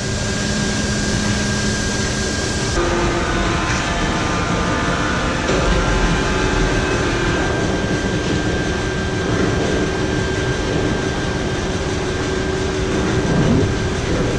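Heavy industrial machinery in an incinerator's bottom ash pit, with the overhead grab crane working: a loud, steady mechanical drone carrying several steady hums. It changes character abruptly a few seconds in.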